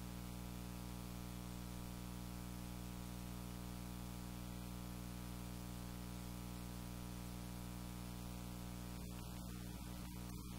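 Steady electrical hum with a buzzy edge over a constant faint hiss; nothing else stands out.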